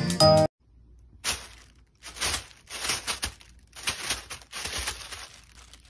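A thin plastic bag crinkling and rustling in irregular bursts as a kitten walks and paws over it, starting about half a second in.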